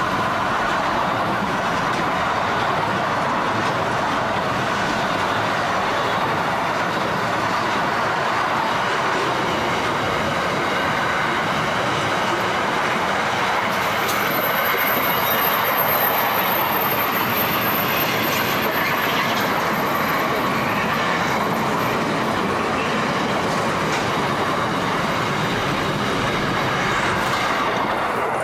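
Container wagons of a long intermodal freight train, many running empty, rolling past at speed: a steady rumble and rattle of steel wheels on the rails, with clickety-clack over the rail joints. From about halfway through, a thin high-pitched tone rides over the noise for several seconds.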